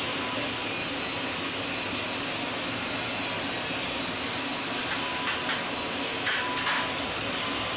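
Steady hiss of a 1970s half-inch Portapak videotape soundtrack with a faint steady tone in it, and a few faint short rustles or clicks near the end.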